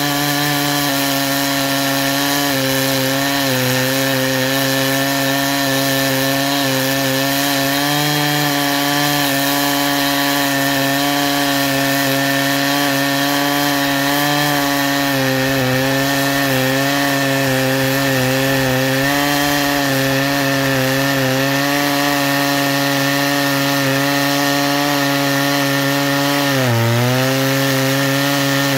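A G272 clone chainsaw's two-stroke engine held at high revs, cutting through a green hardwood log with a 36-inch bar and full-chisel chain. The pitch wavers a little under load and bogs down briefly near the end, then picks up again.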